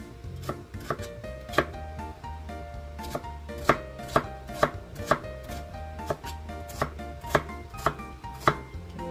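Chef's knife chopping peeled winter melon into chunks on a plastic cutting board, the blade knocking on the board in a steady rhythm of about two strikes a second. Background music plays throughout.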